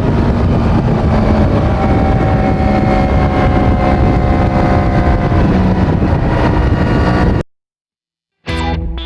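Yamaha MT-10's crossplane inline-four on its stock exhaust, running on the move with wind noise, its pitch slowly dropping. It cuts off suddenly after about seven seconds, and music starts near the end.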